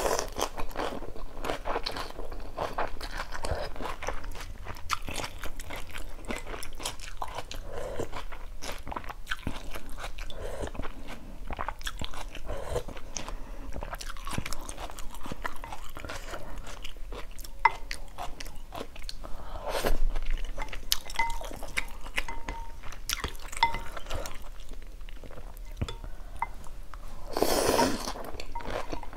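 Close-miked chewing and crunching of chicken offal in phở, mouth sounds and many small smacks, with a louder noodle slurp near the end.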